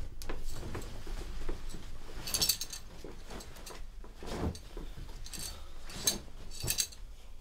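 Clothes rustling, with a few soft knocks and clicks, as a person undresses. The loudest rustles come about two and a half seconds in and again between six and seven seconds.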